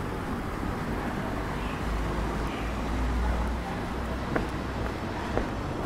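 Outdoor street ambience: a steady background hiss with a low rumble swelling between about two and four seconds in, and a few faint clicks near the end.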